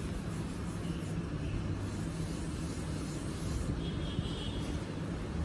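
Steady low hum of a permanent-makeup tattoo machine running.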